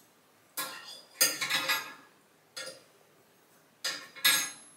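Small metal hooks clinking against a black metal shower caddy shelf as they are hooked onto it: a handful of light, uneven clinks, the loudest about a second in and near the end.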